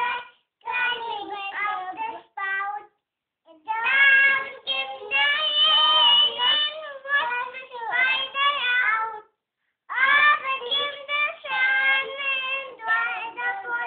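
Young children singing a song in high voices, in sung phrases with short breaks about three seconds in and again about nine seconds in.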